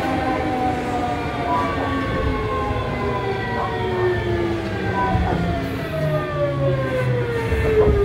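Kintetsu 7000 series train's Mitsubishi GTO VVVF inverter whining in several tones that fall steadily in pitch, over a rumble of running noise. The falling whine is the sign of the train slowing down under braking.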